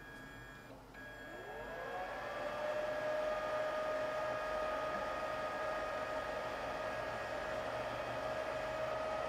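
Creality HALOT-ONE resin 3D printer starting a print: about a second in, a whine climbs in pitch over about two seconds, then holds steady, with a faint constant high tone under it.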